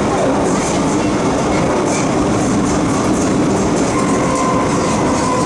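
MTR Tsuen Wan Line M-Train running through a tunnel: steady wheel-on-rail rumble with a low hum. About four seconds in, a steady high whine comes in, the traction motors' whine that Hong Kong railfans call the train's 'ghost howl'.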